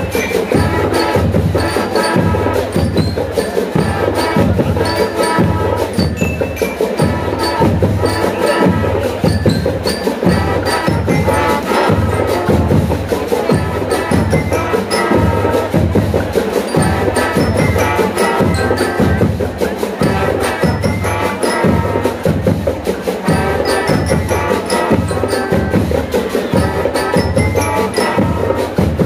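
School marching band playing: trumpets and trombones over a steady drumbeat, with the ringing of bell lyres.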